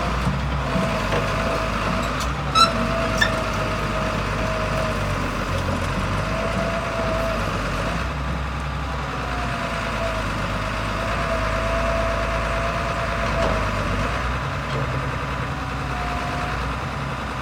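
Hitachi EX270LC excavator's diesel engine running steadily, with a thin wavering whine that comes and goes. Two sharp clicks sound about three seconds in.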